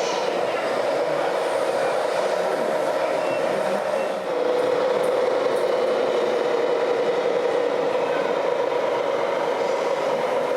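Radio-controlled model trucks and construction machines running, their electric drives and gearboxes giving a steady mechanical whine over a noisy hum. The whine grows stronger after a short dip about four seconds in.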